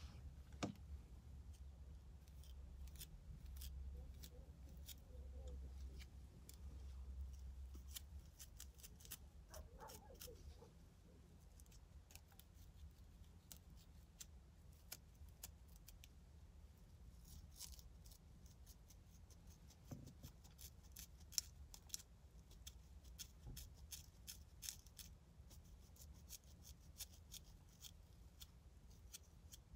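Faint, irregular crisp scratching and ticking of a plastic rat-tail comb scraping along the scalp at the roots of braided hair, working loose dandruff. A steady low hum runs underneath, fading after the first third.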